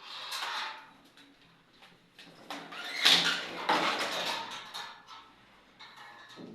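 Electrical wires scraping and rubbing as they are pulled through a conduit by a fish spring, in two drawn-out pulls, the second longer and louder.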